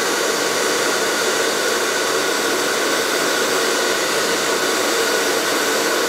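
Handheld hair dryer with a diffuser attached, running steadily on its low setting: an even rush of air with a steady hum in it.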